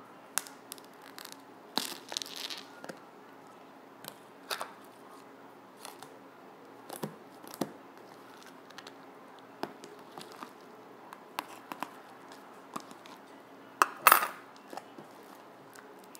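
Fluffy shaving-cream slime being poked in a plastic tub and then squished and kneaded by hand: scattered small clicks, crackles and pops, with a louder squelching burst about fourteen seconds in.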